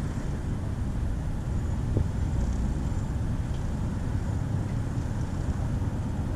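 Steady low rumble of city street traffic, with a faint click about two seconds in.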